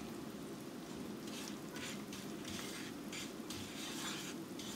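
Wooden spatula stirring and scraping jaggery melting in ghee around a nonstick frying pan, in soft repeated strokes over a faint sizzle, as the jaggery is cooked down into a syrup.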